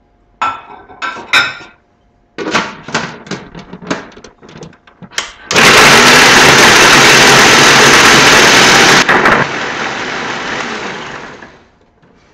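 Electric food chopper chopping vegetables: the motor starts suddenly about five seconds in and runs loud and steady for about three and a half seconds. It is then switched off and winds down, fading out over the next couple of seconds. Before it starts, a scatter of clicks and clinks as the jar is handled and set in place.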